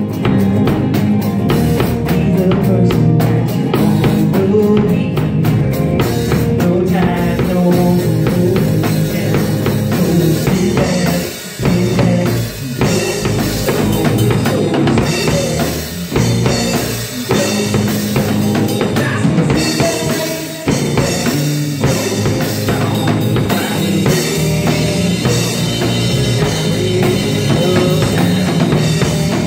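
Live rock band playing loud: two electric guitars over a drum kit keeping a steady beat, with a few brief stops about twelve seconds in.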